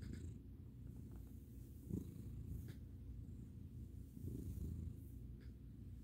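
An American Ringtail cat purring continuously while being petted, a low, fast rumble that swells louder about two seconds in and again after four seconds.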